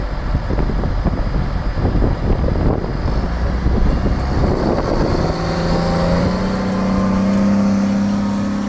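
Case 255 compact tractor's diesel engine running under load while ploughing, rough and clattering at first. About five seconds in, a clear steady engine note comes through and rises slightly in pitch.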